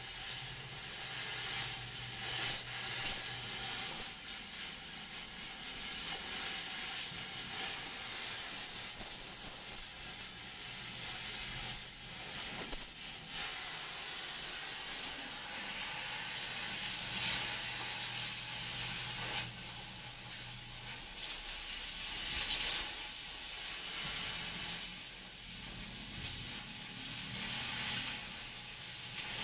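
Oxy-fuel cutting torch hissing steadily as its flame cuts through a steel floor plate.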